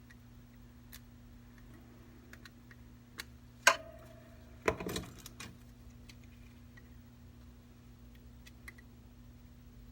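Small parts and tools being handled on a repair bench: scattered light clicks and taps, a sharp metallic clink with a short ring about three and a half seconds in, and a brief clatter about a second later, over a steady low hum.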